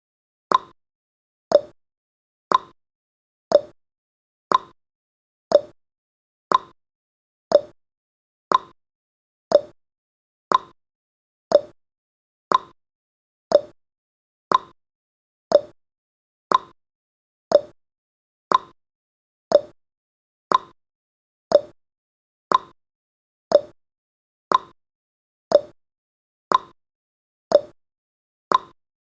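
Clock-style tick sound effect of a countdown timer: one short, sharp tick each second, marking off the seconds with silence in between.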